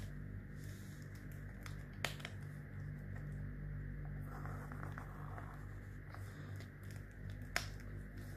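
Pen drawing lines on paper: faint scratching, with two sharp clicks, about two seconds in and again near the end, over a steady low electrical hum.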